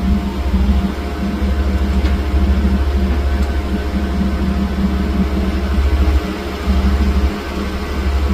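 Diesel engine of a 3W wheeled excavator running steadily with a deep low hum. Its level dips briefly twice near the end.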